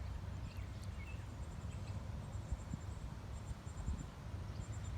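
Faint, rapid, high-pitched chirping like insects, in short trains in the second half, over a steady low rumble.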